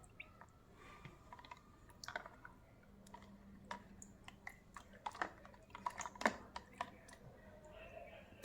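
A run of irregular light clicks and taps as the action camera's hard plastic waterproof case is handled, thickest in the middle and second half.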